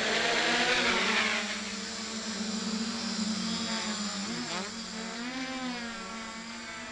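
Hexacopter's electric motors and propellers buzzing, loudest in the first second or so. The pitch then wavers as the craft manoeuvres, and the sound grows fainter as it flies away.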